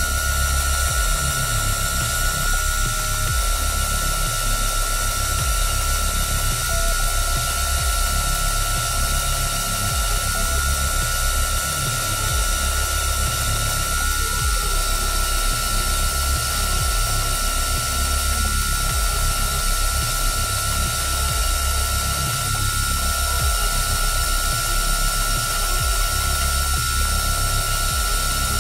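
Makita 700C router spindle on a CNC machine running steadily while milling a pocket in a black sheet, with a constant high whine. A lower hum underneath changes pitch every few seconds as the cutting moves change.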